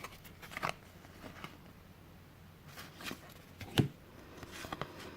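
Board-game cards being handled: a few faint rustles and soft taps as they are sorted, with one sharper tap a little before four seconds in.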